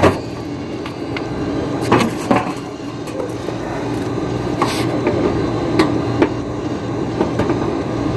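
Split-type air conditioner compressor running with a steady low hum after being started with an added starting capacitor, with a sharp click at the start and a few scattered clicks and knocks. It runs, but it is a hard-starting compressor that is still weak on the 40 µF capacitor.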